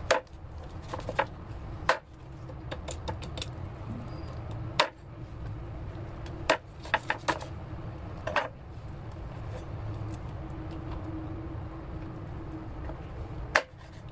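Knife knocking and clicking on a cutting board as raw chicken is trimmed of fat, about a dozen sharp knocks at irregular intervals over a steady low hum.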